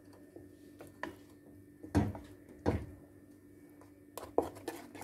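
Wooden spoon stirring a thick soap paste in a stainless steel pot and knocking against the pot's side: two solid knocks about two seconds in, then a run of lighter taps near the end.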